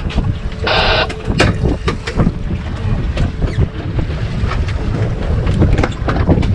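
Wind buffeting the microphone aboard a boat at sea, with a steady low rumble. Scattered knocks and clicks come from rods and tackle being handled, and there is a short rasping buzz about a second in.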